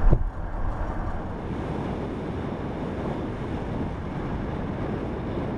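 Steady rushing road and wind noise from a car driving on smooth pavement, heavier low rumble in the first second.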